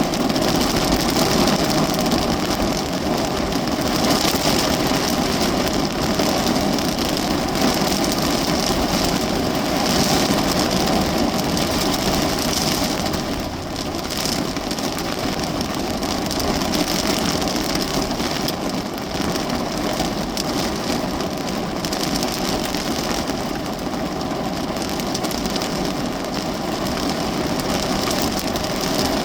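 Heavy rain drumming steadily on the roof and body of a parked car, heard from inside the cabin.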